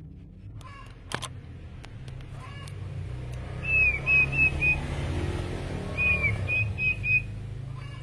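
Caged sirpu songbird singing two short whistled phrases, one about halfway through and one near three quarters through. Each phrase is a down-curving note followed by three or four quick clipped notes. A low rumble runs under the song.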